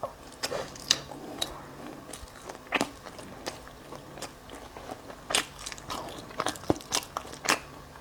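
Eating a bagel: irregular crunching bites and chewing, with a few louder crackling snaps spread through.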